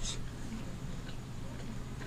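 Soft close-miked eating sounds of fingers mixing rice and fish curry on a steel plate, with a short wet smack right at the start and a couple of faint clicks about a second in, over a steady low hum.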